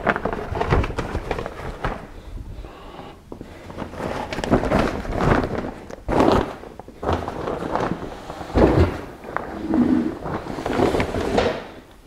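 Fabric barbecue-grill cover being tugged and smoothed over a portable generator, rustling in irregular bursts, with footsteps on a concrete floor and a few dull thuds.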